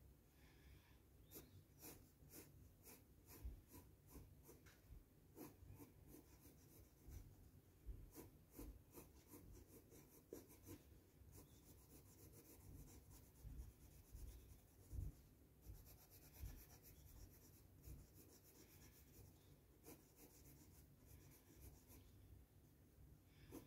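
Green Crayola colored pencil shading on drawing paper in many short, repeated strokes, a faint scratchy rubbing.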